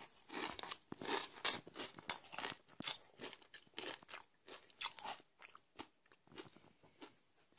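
Ketchup-flavoured Doritos tortilla chips being chewed: a run of irregular, crisp crunches, several a second, that grow fainter and sparser toward the end.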